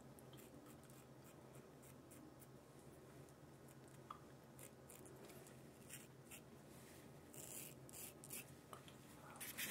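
Faint, short scraping strokes of a Feather double-edge safety razor cutting stubble through shaving lather, one after another at an uneven pace, with a few louder strokes near the end.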